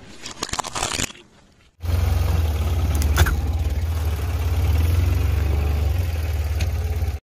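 For about the first second, a car tyre rolls over a pink plastic toy with quick crackling and snapping of breaking plastic. After a short gap a car engine idles close by with a heavy low rumble and a single sharp click about three seconds in, then the sound cuts off abruptly.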